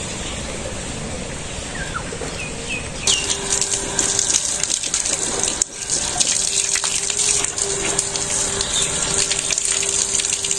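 Fire blazing in a clay mud stove: a steady rushing noise thick with crackles and sharp pops, starting suddenly about three seconds in. Before that, quieter outdoor ambience with a few faint bird chirps.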